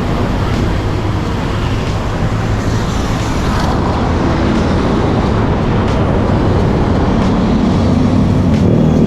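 Street traffic: a motor vehicle engine runs close by over a steady background of road noise, loud and continuous.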